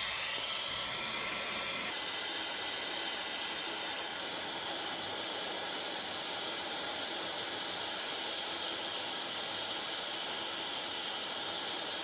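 Handheld hair dryer running, blowing a steady hiss of hot air.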